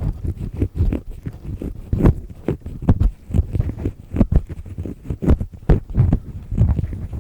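Black triple-disc ear pick scraping in an ear right at the microphone: rough, uneven scraping strokes about two or three a second, heavy in the low end.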